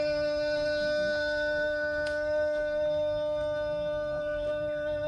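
A single long held note, steady in pitch and rich in overtones, that starts sharply and slides downward just at the end.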